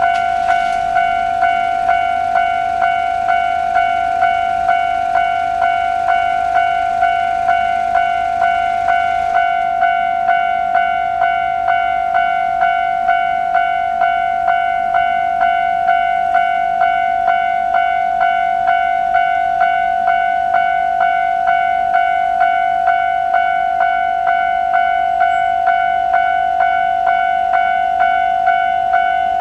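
Japanese electronic railway level-crossing alarm ringing its standard warning tone. It is a loud, steady ding repeated evenly about once a second, signalling an approaching train. It stays at full volume rather than being turned down once the barriers are lowered.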